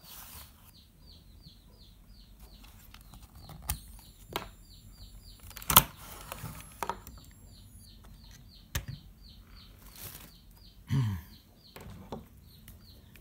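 A bird chirping over and over, a short falling chirp about three times a second. Sharp clicks and knocks from a plastic 12 V power-tool battery being handled and set down, the loudest a little before the middle.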